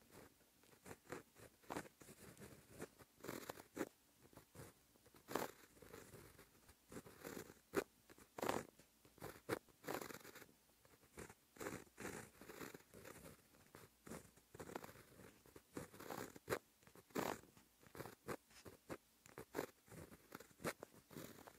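A pen nib scratching across textured paper in short, irregular strokes as handwritten Japanese characters are written out, several strokes a second with brief pauses between characters.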